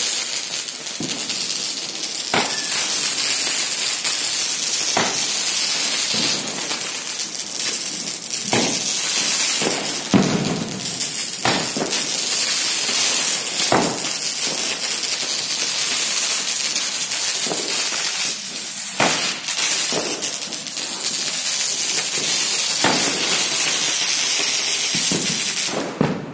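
A "20 Jingles" firecracker, a ground firework, fizzing with a steady high hiss as it sprays sparks. Sharp pops come every one to three seconds as it fires glowing shots into the air.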